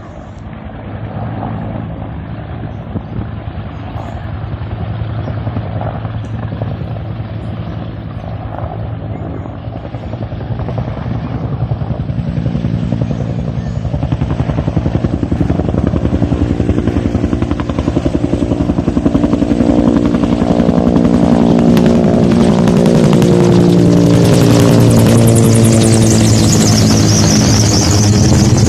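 Water-bombing helicopter approaching, its rapid rotor beat and engine growing steadily louder through the second half. A high whine slides down in pitch near the end.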